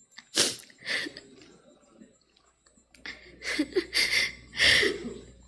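A woman sniffling and taking short, shaky breaths close to a microphone, five sharp sniffs in all with a brief voiced catch in the breath about three and a half seconds in, as when weeping.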